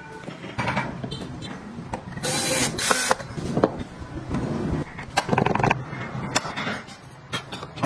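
Small wooden car-model parts being handled and fitted by hand: scattered light knocks and clicks of wood on wood and on the bench, with a longer scrape about two seconds in.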